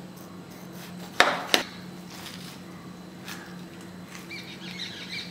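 Kitchen knife cutting through watermelon flesh on a stainless steel plate, with two sharp knocks about a second and a half in and a fainter one a couple of seconds later.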